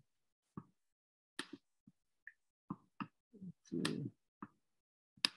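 A scattered series of brief, faint clicks and ticks, about ten in five seconds, with one sharper, louder click near the end.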